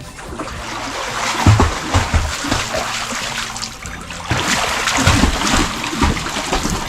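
Water splashing and sloshing in a pool as a swimmer strokes and kicks, with several heavier splashes along the way.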